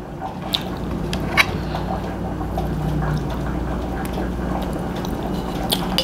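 Steady bubbling of a pot of potatoes boiling on the stove, with a few light clicks of cutlery against a plate, a couple of them near the end.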